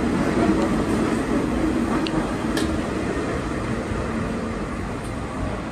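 New York City Subway R32 train running past the platform, its sound slowly getting quieter, with two brief high squeaks about two and two and a half seconds in.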